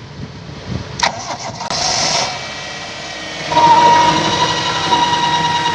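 A 1998 Toyota Indus Corolla engine is cranked with a click and a short burst, then catches and settles into a steady idle about three and a half seconds in. Over the engine runs a steady high whine, an extra noise besides the engine itself, which the shop puts down to the PCV valve.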